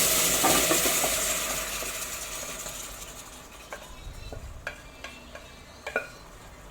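Cooked mutton and its liquid sizzling loudly in a hot pan, the sizzle dying down over the first few seconds as the pan cools. After that a spoon scrapes and taps against the pan as the meat is stirred.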